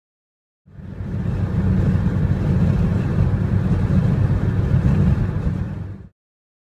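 Steady low rumble and hiss of a car driving at motorway speed, heard from inside the cabin, starting a little under a second in and stopping shortly before the end.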